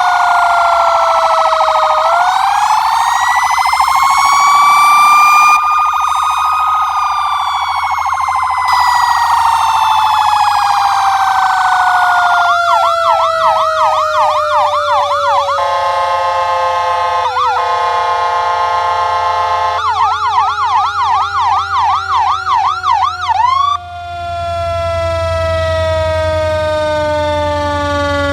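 Ambulance sirens sounding together. A long wail rises and falls, then about twelve seconds in the siren switches to a fast yelp, gives a steady horn-like blast for a few seconds, and goes back to yelping until it cuts off about 24 seconds in. Under the yelp and blast a second siren tone keeps sliding slowly down through the end.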